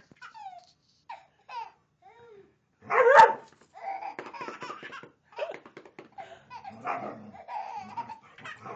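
Baby laughing in repeated fits, the loudest burst about three seconds in.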